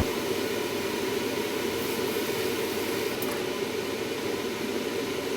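Steady, even hiss of sisig cooking, loud enough that the cook worries her voice won't be heard over it.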